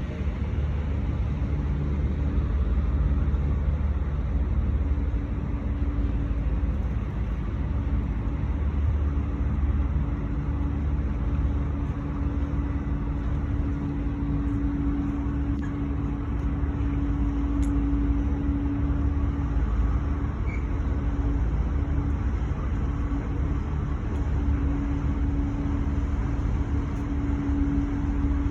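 A boat's engine running steadily: a continuous low rumble with a steady hum above it.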